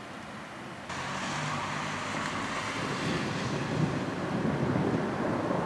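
Thunder following a lightning flash: a rumble that starts abruptly about a second in and builds steadily louder.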